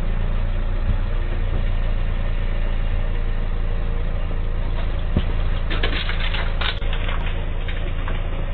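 A car engine idling close by, heard as a low, steady rumble through a doorbell camera's microphone, with a few knocks and rattles about six to seven seconds in.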